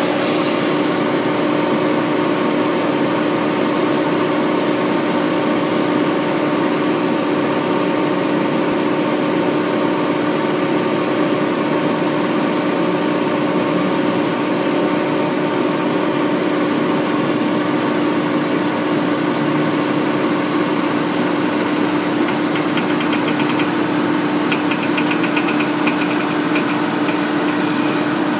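2005 Nissan 350Z's V6 engine idling steadily with the car parked. A faint rapid chatter comes in twice near the end.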